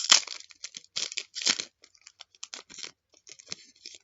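Trading card pack and cards being handled: a run of crinkling, rustling bursts, loudest in the first second and a half and quieter near the end.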